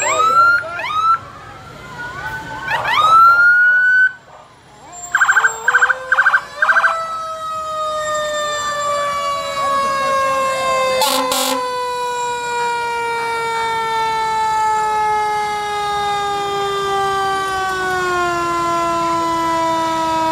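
Fire truck sirens: an electronic siren yelping in quick up-and-down sweeps, then four short horn blasts. After that comes one long siren tone that falls slowly and steadily in pitch, like a mechanical siren winding down.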